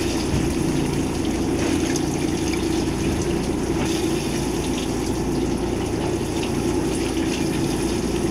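Steady sound of a fishing boat at sea: a constant engine hum under the noise of water rushing and splashing.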